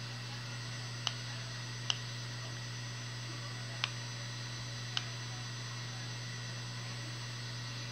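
A steady low hum with four short sharp clicks at uneven intervals in the first five seconds.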